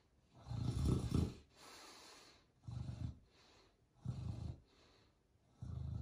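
Beagle snoring: four rough snores about a second and a half apart, the first the longest and loudest, with softer breaths between.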